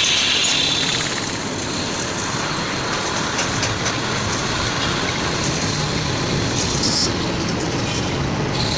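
Ashok Leyland truck running, a steady mechanical rumble, with a few faint clicks about seven seconds in.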